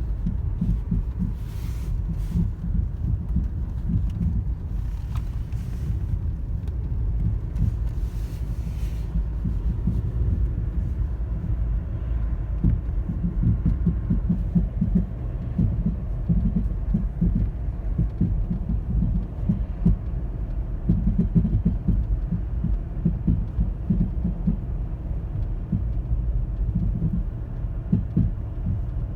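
A 2010 Toyota Corolla LE making a low thumping, popping noise: a steady rumble of fast, irregular pulses. A few brief rustles come in the first ten seconds.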